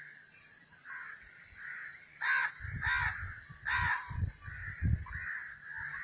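A crow cawing three times in quick succession, with low thumps around the calls.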